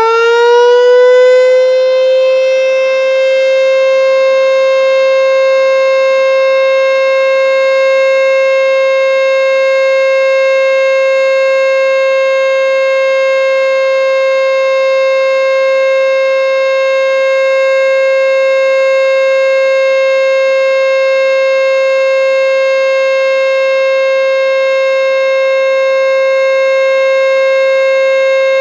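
American Signal T-121 warning siren sounding a steady full-alert tone in a test of the nuclear plant warning system. It finishes winding up to full pitch in the first two seconds, then holds one loud, steady pitch.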